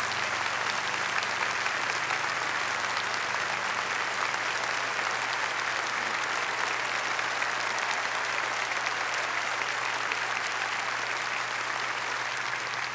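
A large audience applauding steadily, the clapping easing slightly near the end.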